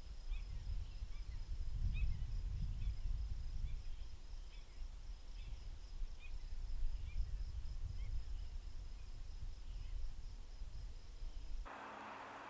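Small birds chirping, short chirps coming about once or twice a second, over a steady, high, pulsing trill and a fluctuating low rumble. Near the end it cuts off suddenly to a steady hiss with a low hum.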